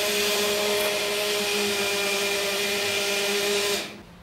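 Countertop electric blender running steadily with a motor whine, blending a chocolate milkshake of milk, water, sugar, cocoa and chocolate bar; it switches off near the end.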